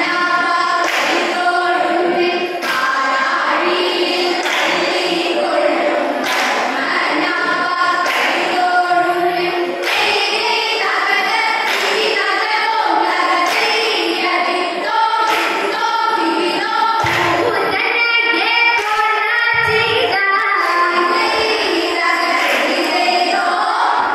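A group of female voices singing a vanjippattu, the Kerala boat song, in unison, with steady hand claps keeping time about once every second and a quarter.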